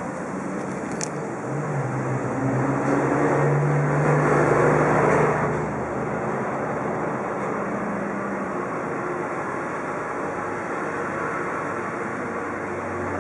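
Vacuum cleaner running steadily, its motor hum shifting slightly in pitch. A louder rush of suction swells from about two seconds in and eases off after about five and a half seconds.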